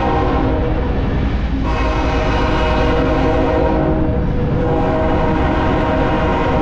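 Freight diesel locomotive's multi-chime air horn blowing long blasts, a steady chord that briefly breaks about a second and a half in and again around four seconds in. Under it is the low rumble of the train running at speed.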